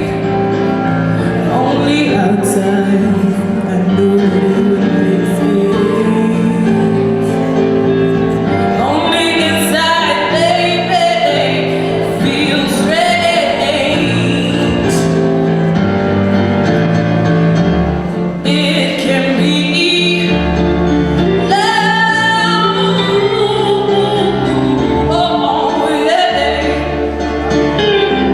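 A song played with held chords and a singing voice, the voice coming in for long phrases about a third of the way in and again in the second half.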